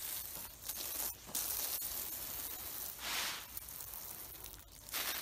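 Garden hose spray wand hissing as a hard jet of water hits the soil and plastic mulch. It starts suddenly as the nozzle opens and surges louder a few times as the spray is swept along.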